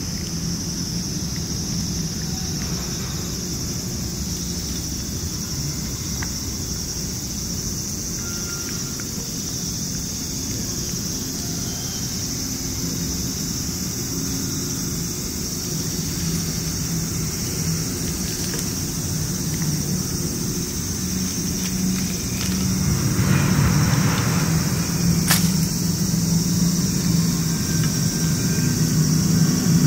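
Low, steady hum of a motor vehicle engine running, growing louder over the last several seconds, over a constant high drone of summer insects. A single sharp click comes about 25 seconds in.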